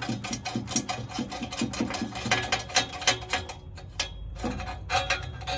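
Rapid small metallic clicks, several a second, as a small bolt is worked into the clamp of an exhaust whistle on a tailpipe. The clicking thins out about three and a half seconds in, with a few single clicks after.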